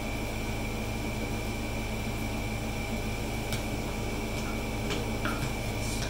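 Steady hum of a fan-type machine with a constant high whine, and a few faint clicks and knocks of parts being handled in the second half.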